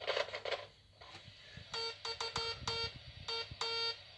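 Morse code beeps from a kit-built Morse key sender, picked up by a crystal diode AM radio and played through its amplifier speaker: a buzzy tone keyed on and off in a run of short and longer beeps, starting a little under two seconds in. Before it, a few faint crackles.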